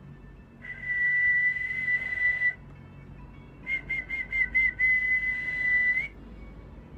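A man whistling: one steady high note held for about two seconds, then, after a short pause, a quick run of about six short pulsed notes that runs into another long held note, which lifts slightly in pitch just before it stops.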